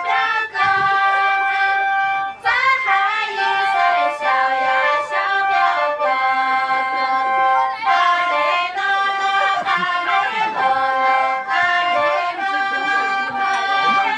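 Music: reed instruments playing a melody in held notes, several sounding together.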